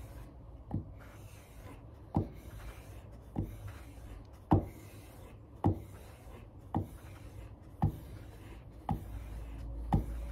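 Plough-plane iron being honed back and forth on a sharpening stone: a steady scraping rub with a sharp click about once a second.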